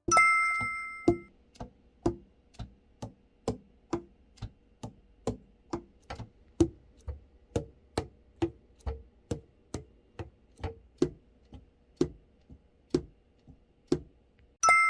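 Light taps on a Cannonball tenor saxophone under repair, about two a second, each with a short hollow ring whose pitch shifts slightly from tap to tap. A sharper metallic clink with a high ringing tail comes at the start and again near the end.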